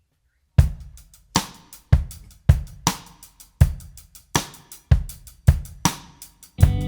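Background music: a drum kit starting up after a short silence, with a steady beat of kick and snare hits about two a second and hi-hat and cymbal on top.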